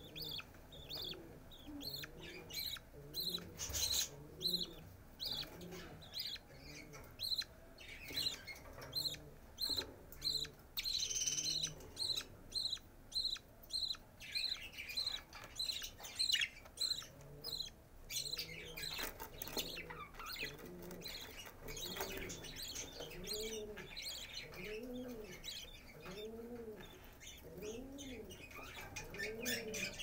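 Budgerigar chicks cheeping in the nest box, a rapid run of short high peeps about twice a second, the begging of chicks being fed by the hen. In the second half a lower call, rising and falling, repeats about once a second.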